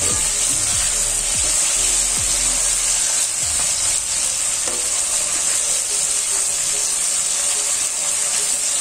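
Beef pieces sizzling steadily as they fry in hot oil in a metal wok, turned with tongs.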